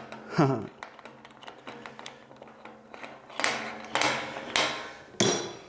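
A few short metallic clicks and clatters from hand-working band saw parts and tools, in a cluster of four or so knocks in the second half.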